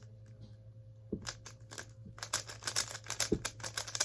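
Rubik's cube being turned fast in the hands: a quick, irregular run of plastic clicks and clacks that starts about a second in and gets denser after two seconds.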